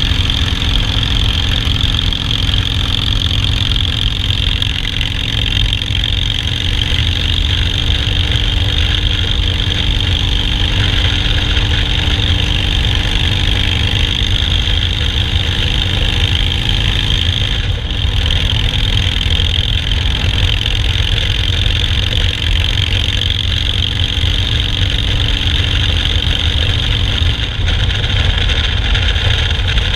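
Harley-Davidson Softail Standard's V-twin engine running steadily at an even speed, with no revving.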